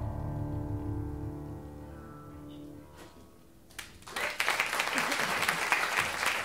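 A band's final held chord rings out and fades over about three and a half seconds, then the audience breaks into applause.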